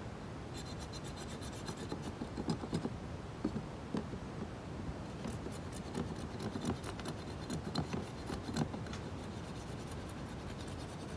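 Irregular scratching strokes of a hand-held scraper against a small boat's hull, roughing up the surface around a crack that is to be patched.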